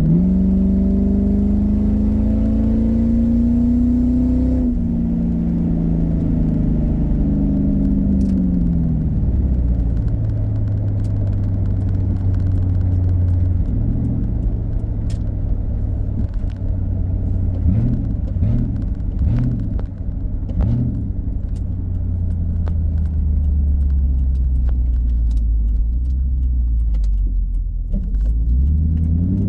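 A 2001 Mustang GT's 4.6-litre V8 with the cat-back exhaust removed, heard from inside the cabin while driving. The engine note climbs for about four seconds and drops at a shift, then falls away to a low steady note while cruising. It sinks lower as the car slows near the end and starts to rise again just before the end.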